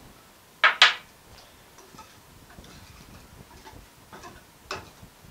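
Wire whisk beating thin cake batter in a cut-glass bowl, the wires clinking against the glass: two sharp clinks a little over half a second in, then fainter irregular taps.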